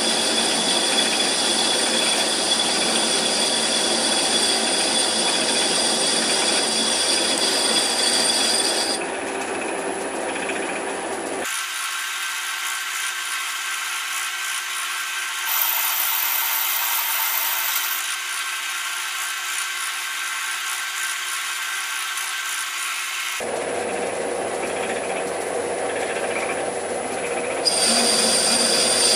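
Raglan 5-inch lathe running under power during a screwcutting test, a steady mechanical whir with a high whine from its drive and gearing. The sound thins and drops a little for a stretch in the middle, then comes back fuller near the end.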